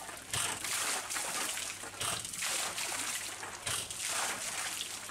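Muddy water from a borehole being drilled splashing and trickling out, with a couple of short knocks.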